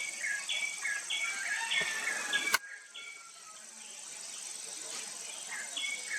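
A bird chirping a quick repeated two-note call, each note stepping down from high to lower pitch, about three calls a second. A sharp click about two and a half seconds in breaks it off, and the chirping picks up again near the end, over a steady high-pitched hiss.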